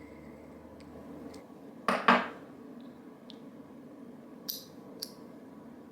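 Small metal fidget toy worked in the fingers: a few light metallic clicks, with one louder clack about two seconds in.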